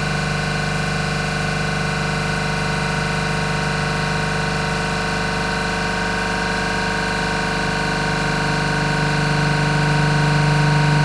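York JK64 piston refrigeration compressor running steadily under test, with a constant mechanical hum that grows a little louder near the end.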